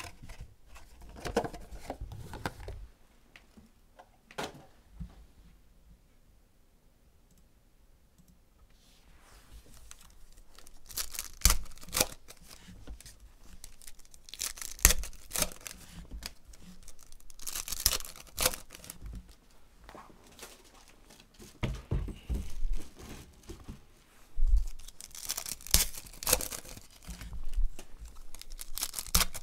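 Foil trading-card packs torn open and crinkled by hand, with the cards inside handled. After a few quiet seconds near the start, the tearing and rustling comes in repeated sharp bursts.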